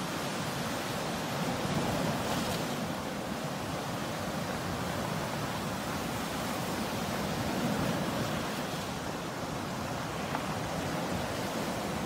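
Sea waves breaking and washing up the shore in a steady rush, swelling a little twice, about two seconds in and again near eight seconds.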